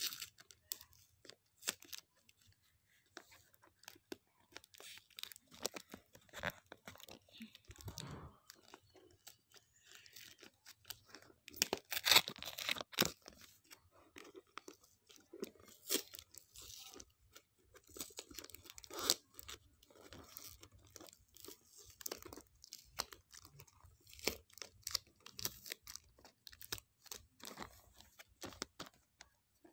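Gift-wrapping paper on a box being handled, crinkled and torn by hand in irregular crackles and short rips, with a louder run of tearing about twelve seconds in.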